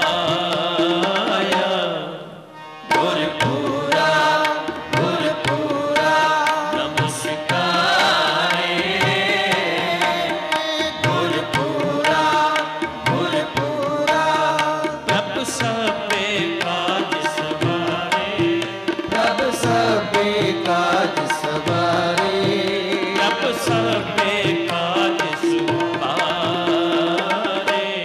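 Sikh kirtan music: harmonium melody with tabla drumming, dropping away briefly about two seconds in before picking up again.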